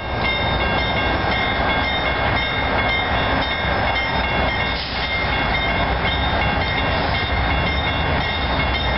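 Railroad grade-crossing bells ringing steadily while the crossing gates come down, over the low rumble of a train.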